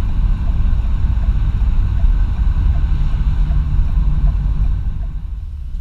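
Car driving at highway speed: a steady low rumble of road and wind noise that eases off near the end.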